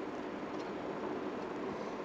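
Steady background hiss of room tone, with no distinct sound events.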